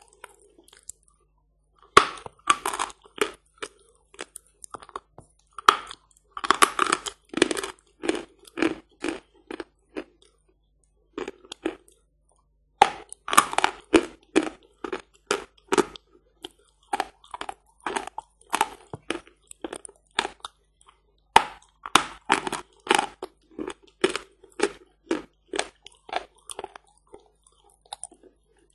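A piece of Badger (Barsuk) chalk being bitten and chewed close to the mouth: clusters of dry, crisp crunches, each run fading off, with short pauses between the runs.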